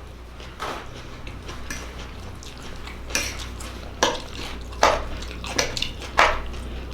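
Cutlery clinking and scraping against a plate during a meal, a handful of separate clinks spread a second or so apart.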